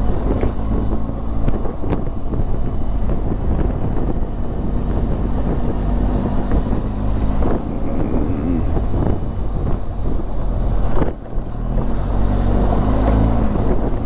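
A vehicle's engine running steadily while driving, with heavy road rumble and a few sharp knocks from the rough surface. The engine's pitch rises and falls a little, and the sound dips briefly about eleven seconds in.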